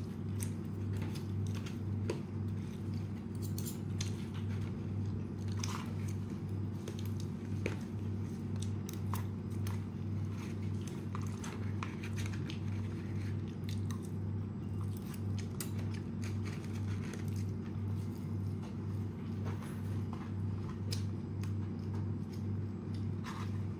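Close-up chewing and crunching of crispy fried chicken, with many scattered crunchy bites, over a steady low hum that pulses evenly.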